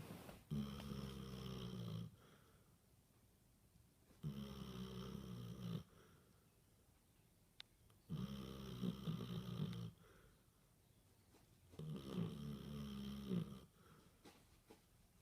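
Basset hound snoring in its sleep: four long snores, each lasting a second and a half to two seconds, about one every four seconds.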